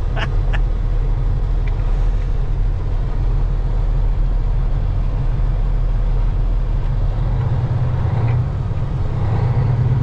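Semi-truck engine and road noise heard from inside the cab while driving: a steady low drone. About three quarters of the way through, the lowest rumble fades and a louder, slightly higher engine note takes over.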